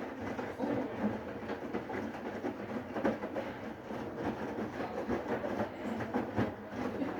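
Siemens iQ500 varioPerfect front-loading washing machine tumbling a load of towels mid-wash: the drum turns with an uneven rumble and light irregular clatter.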